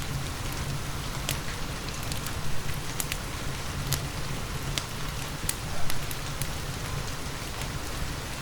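Steady rain hissing, with a wood fire crackling: sharp pops scattered irregularly through it.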